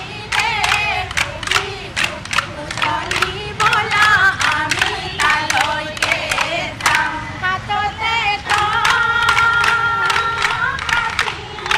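Group of women singing a Bihu song together while striking split-bamboo toka clappers in a quick, steady beat. One long held note near the end.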